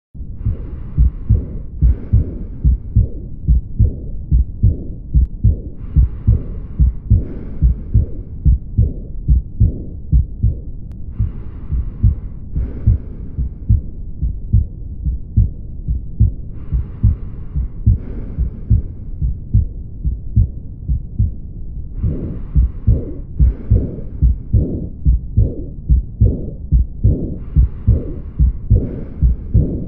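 Heartbeat recording: a steady, fast run of low thumps. A fainter, higher hiss in two short parts comes every five or six seconds.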